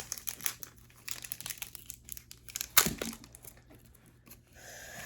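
Foil Pokémon booster pack wrapper crinkling and crackling as it is handled and torn open, with one louder crackle a little under three seconds in.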